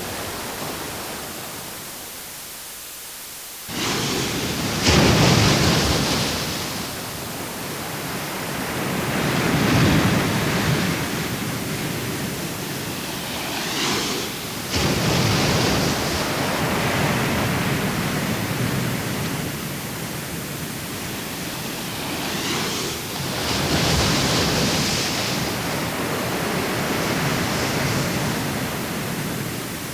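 Sea waves breaking and washing on a shore, the surf swelling and falling back every few seconds. The sound jumps abruptly louder about four seconds in and again about halfway through.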